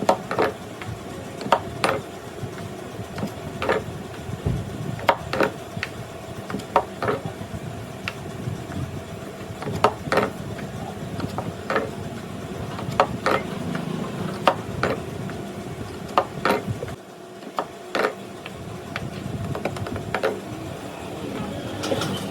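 Irregular sharp knocks and clicks, roughly one or two a second, over a steady mechanical hum.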